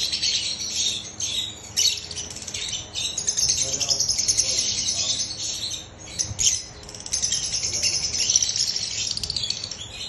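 A flock of caged lovebirds chattering: a dense run of shrill chirps and squawks, briefly quieter about six seconds in.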